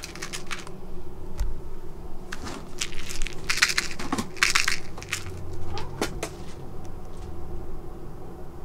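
Cats scratching and scuffling at a cardboard box and on the rug: a run of short, scratchy crackling rustles, thickest in the middle and thinning out after about six seconds, over a faint steady hum.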